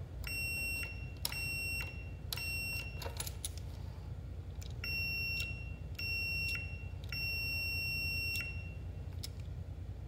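Fluke 88 multimeter's continuity beeper sounding each time a momentary start button is pressed and closes the circuit, showing the switch makes contact. There are six steady high beeps: three short ones, a pause of about two seconds, then two short ones and a longer one of about a second.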